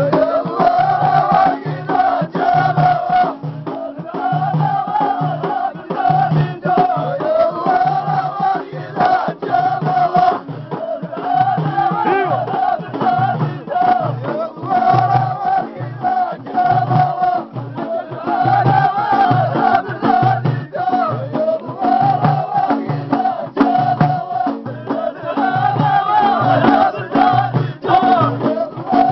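A group of men singing an Amazigh folk chant together, with hand claps and a frame drum keeping a steady beat.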